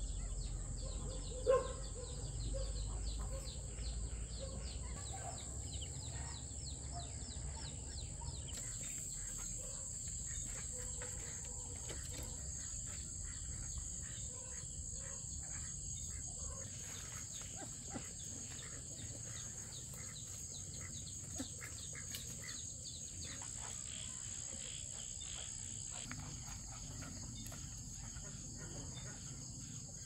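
Steady high-pitched trilling of insects, with a few faint ticks and one short sharp knock about a second and a half in.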